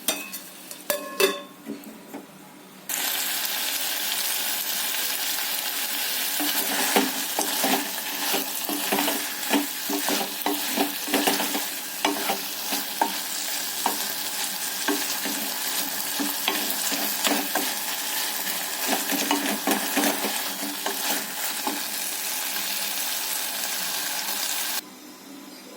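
Pumpkin pieces sizzling as they fry in a pan while being stirred, with many short scraping strokes against the pan. A few utensil clinks come first; the sizzle starts suddenly about three seconds in and cuts off suddenly near the end.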